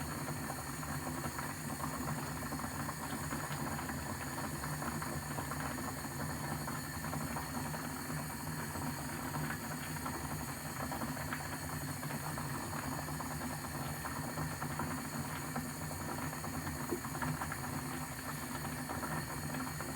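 Kettle at a full boil: a steady rumble of bubbling water with a hiss of steam over it.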